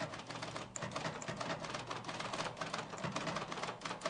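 A typewriter being typed on: a rapid, irregular run of clacking key strikes.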